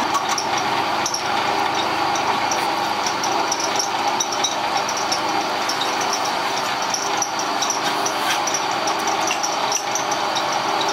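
Milling machine running steadily with a constant hiss and light, irregular ticking.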